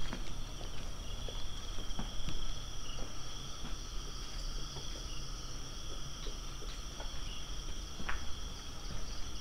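A steady chorus of crickets and other night insects, several high pitches held together without a break, with scattered light crackles of footsteps through undergrowth.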